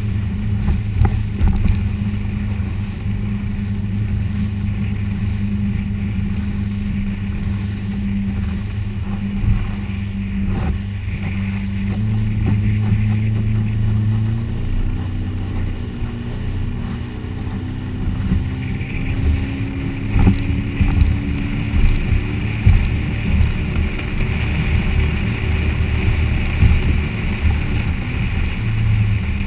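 Motorboat engine running steadily under way, heard from on board along with water and wind noise. The engine pitch rises a little about halfway through, and the hiss of wind and water grows stronger in the second half.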